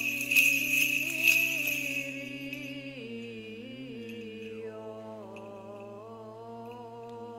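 Byzantine chant in Greek: a slow sung melodic line over a steady, held low drone (ison). The bells of a swung censer jingle for the first two seconds and fade out.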